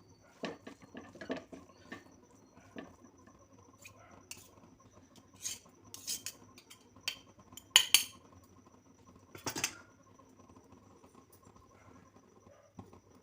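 Spatula scraping and clinking against a pan as stir-fried noodles and vegetables are tossed, in irregular strikes, the loudest about eight and nine and a half seconds in.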